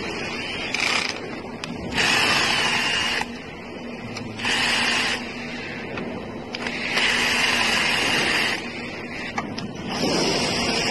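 Cordless drill/driver running in four short bursts of one to two seconds each, turning the screws in an electric scooter's stem tube.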